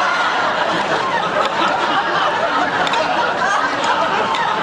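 Studio audience laughing, many people at once in one long, steady laugh.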